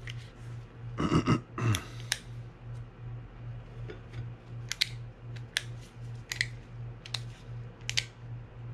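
Small sharp metal clicks and clinks from handling the parts of a fishing reel being taken apart. There is a quick cluster of clicks about a second in, then single clicks a little under a second apart.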